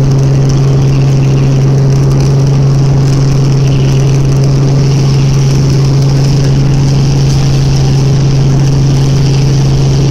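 Robinson R44 helicopter heard from inside the cabin during lift-off and climb: its six-cylinder piston engine and rotors make a loud, steady, low drone that holds one pitch throughout.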